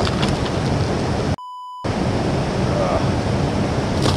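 Steady wind noise rumbling on the microphone. About a second and a half in, the sound cuts out and a steady beep about half a second long is dubbed in, like a censor bleep.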